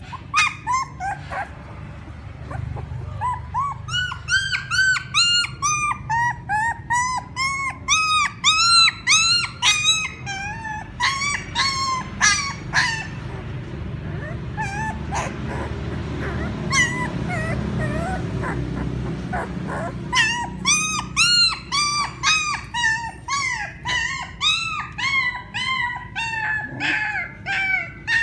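Several young puppies crying and whimpering in quick, overlapping, high-pitched squeals, the cries of newborn pups calling for their mother. The cries thin out for several seconds around the middle, where a low steady noise is heard, then come thick again.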